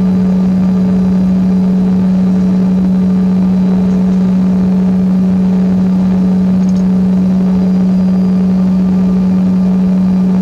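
Steady drone inside the cabin of a Bombardier CRJ-200 regional jet standing at the gate, a single unchanging hum.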